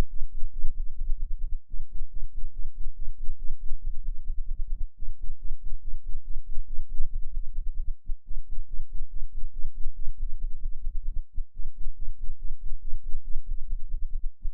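Subwoofer playing a 7 Hz bass test tone, heard as a rapid, low, fluttering throb. The throb cuts out briefly about every three seconds.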